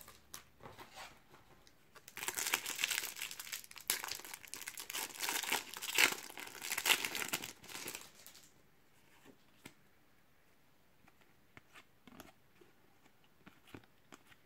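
Foil trading-card pack (Topps Match Attax) being torn open and its wrapper crinkled, starting about two seconds in and lasting about six seconds, followed by faint clicks and rustles of the cards being handled.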